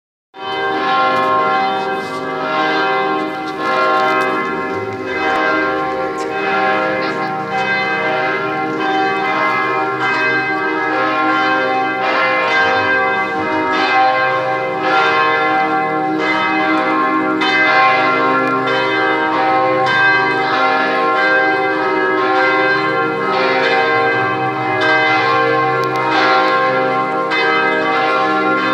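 A basilica's church bells pealing together, several bells struck over and over so that their tones overlap and ring on continuously.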